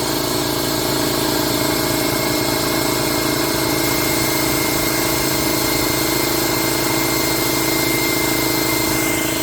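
Air compressor running steadily off a portable generator while inflating a plugged tire, a constant mechanical drone with a steady hum.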